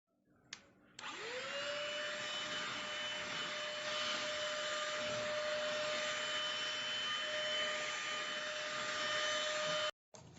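Enolux ST6101 cordless handheld vacuum cleaner switched on: after a small click, the motor spins up with a quickly rising whine. It then runs steadily with a high whine over rushing air, cutting off suddenly near the end.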